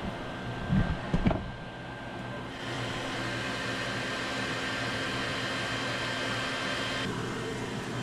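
A steady hum, with two dull bumps in the first second and a half. From about two and a half seconds in until about seven seconds in, a louder hiss with a faint high tone rides over it.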